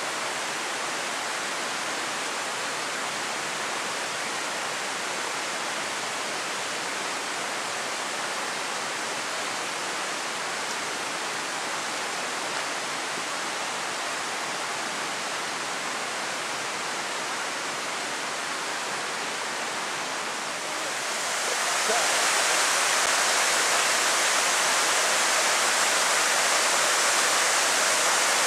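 Mountain stream and waterfall rushing: a steady, even whoosh of cascading water. About three-quarters of the way through it suddenly gets louder and brighter, as if much closer to the water.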